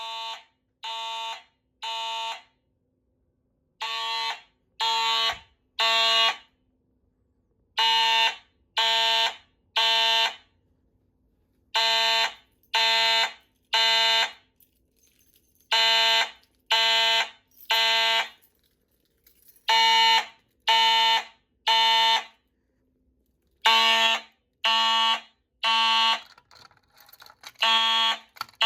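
Fire alarm horn sounding in the temporal-three evacuation pattern: three buzzy blasts about a second apart, then a pause, repeating every four seconds. It grows louder over the first few rounds.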